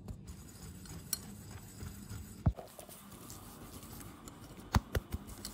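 Wire whisk stirring a thick egg-yolk and powdered-sugar mixture in a glass bowl: a soft scraping, broken by a few sharp taps of the whisk against the glass, the loudest about halfway through and two close together near the end.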